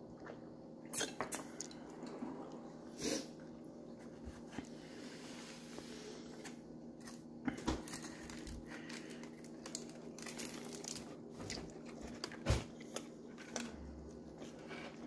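Crunching and chewing of a crispy birria taco, its corn tortilla pan-fried in the stew's fat, in scattered bites and crunches over a faint steady hum.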